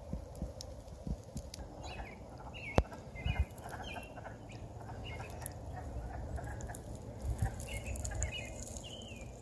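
A chorus of frogs calling from a pond: many short, high, creaky calls that overlap and repeat. Footsteps crunch on dry leaves and grass underneath, with one sharp click about three seconds in.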